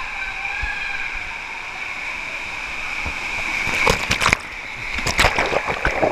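Water rushing steadily along a fibreglass water slide under a sliding rider, then loud irregular splashing and sloshing from about four seconds in as the rider plunges into deep churning water.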